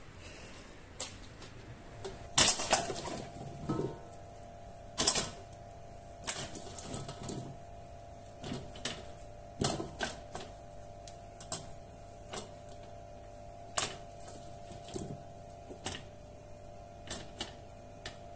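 Irregular clicks and knocks of things being handled, the loudest cluster about two and a half seconds in, over a steady hum that starts at about the same point.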